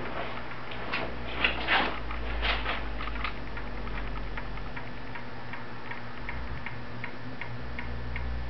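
Bearing of an outdoor windmill ticking steadily as the windmill turns, roughly three ticks a second, over a low steady hum.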